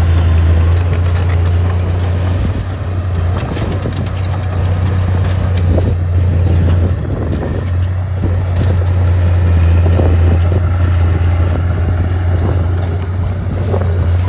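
Heavy diesel earthmoving machine running, a steady low engine drone with scattered knocks and clanks over it.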